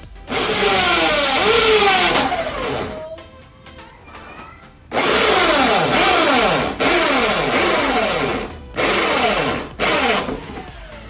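Hand drill with a 32 mm hole saw cutting a hole through a plastic scooter panel, run in bursts: one of about two and a half seconds, then after a pause a longer run from about five seconds in, broken by short stops, ending just before the end. The drill's whine dips in pitch again and again as it runs. Background music plays underneath.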